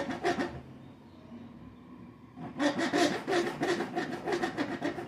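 Small hand saw cutting a notch into a thin wooden stick, in quick back-and-forth strokes: a short bout at the start, then steady rapid sawing from about halfway.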